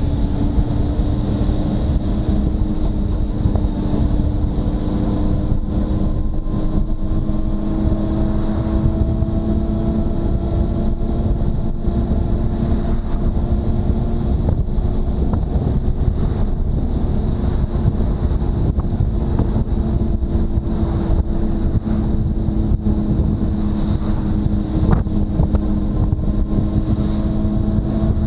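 Motorcycle engine running at cruising speed, its pitch climbing slowly as speed builds over the first half, then holding. Heavy wind rumble on the microphone runs under it.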